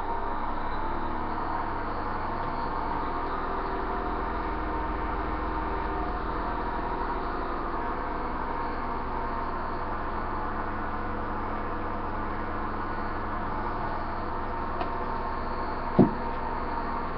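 Steady low hum and hiss, with one sharp click near the end.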